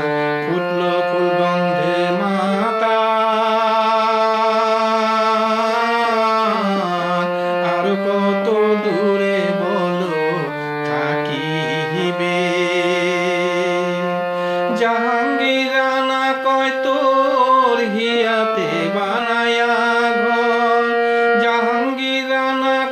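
A man singing a Bengali song with musical accompaniment, holding long notes with vibrato and moving between pitches every few seconds.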